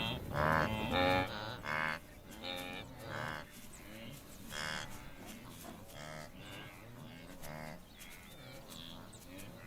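Wildebeest calling: a run of short, nasal lowing calls, loudest in the first two seconds and fainter after that.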